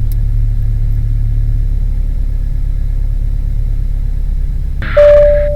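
Light aircraft's piston engine idling, a steady low drone heard through the cockpit intercom while the plane waits before takeoff. About five seconds in, a steady higher tone starts and the sound gets louder.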